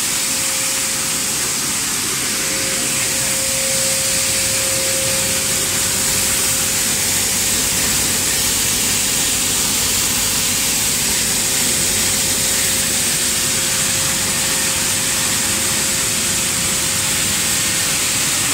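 Maize flour milling machinery running: a steady rush of machine and air noise with a constant whine.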